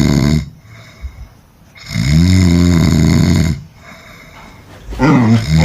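A person snoring loudly in sleep: the end of one snore at the start, then a full long snore about two seconds in, its pitch rising and then falling. Near the end a Border Collie starts to growl.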